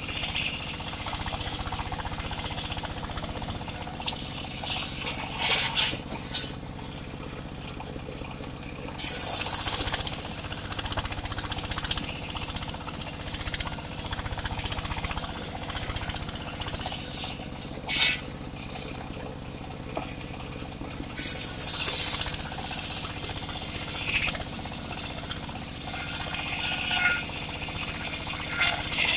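Home-built mobile circular saw running steadily while ripping mahogany. Two loud, high-pitched cuts of about two seconds each come about nine and twenty-one seconds in, with a short sharp one near eighteen seconds.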